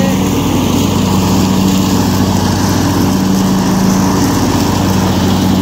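Mower engine running steadily at a constant speed, with an even low hum throughout.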